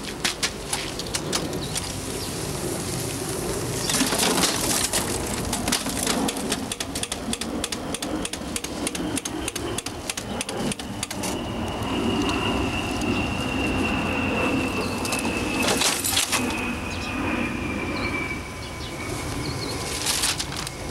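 Clattering, knocking and rustling of a Canon office copier being handled and knocked about on gravel, with several louder crashes. A thin high whine starts about halfway through, drifts slightly lower and cuts off near the end.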